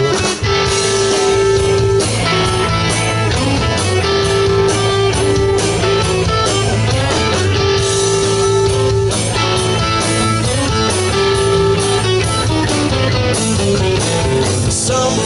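Live rock band playing an instrumental break: an electric guitar lead of held, repeated notes over bass guitar and drums.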